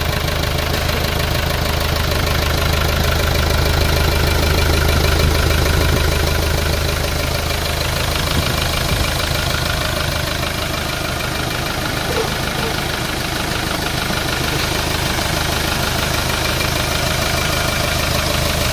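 Hyundai Starex's D4CB 2.5-litre four-cylinder common-rail diesel idling steadily, running on its own after a hard-starting problem was worked on.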